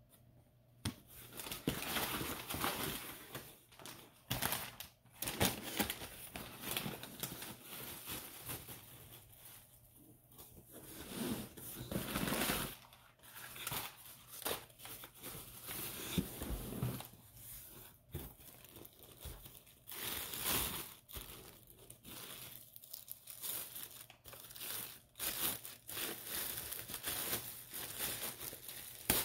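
Cardboard box flaps being pulled open and plastic packing bags crinkling and rustling as they are handled, in irregular bursts.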